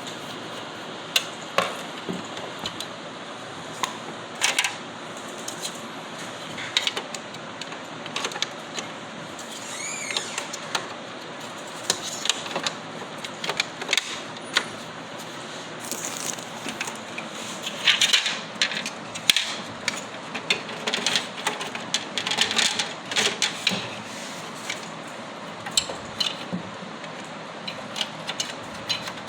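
Irregular clicks, taps and knocks of parts being handled, busiest in the second half, over a steady hiss.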